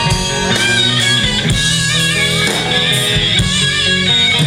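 Rock band playing an instrumental passage between sung lines, guitar to the fore with drums keeping a steady beat.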